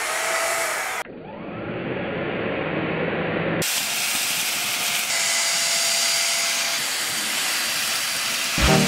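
Upright corded vacuum cleaner, 600 to 800 watts, running at full suction with a steady rushing hiss of air. The sound changes abruptly about a second in and again a few seconds later, as between cut clips.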